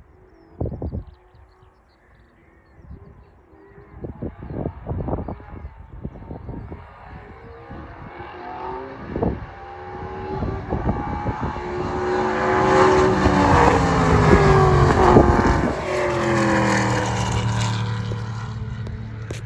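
A touring race car's engine approaches at speed, growing louder over several seconds, then passes with its note dropping in pitch and fades into a lower drone. In the first few seconds a few low thumps are heard.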